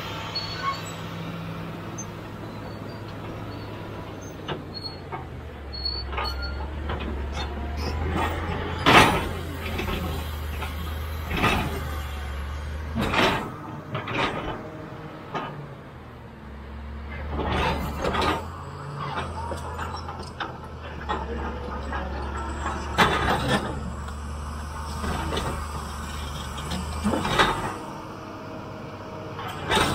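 Caterpillar D7G crawler bulldozer's six-cylinder diesel engine running steadily under load, with irregular sharp knocks and cracks as its rear ripper tears into rock and earth; the loudest knock comes about nine seconds in.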